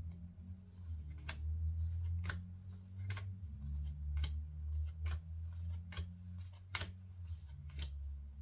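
Pokémon trading cards being flipped through one at a time, a sharp card snap about once a second, over a steady low hum.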